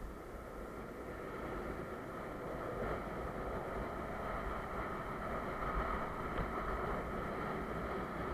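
Longboard wheels rolling fast over asphalt, a steady rumble and hum with wind buffeting the microphone, growing gradually louder as speed builds on the downhill.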